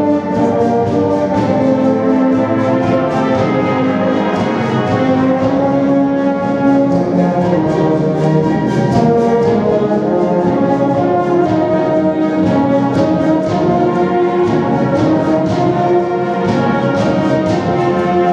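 Wind band playing live: saxophones and brass (trumpets, trombones, tubas) holding full sustained chords over a steady beat of drum and cymbal strokes, with the echo of a church interior.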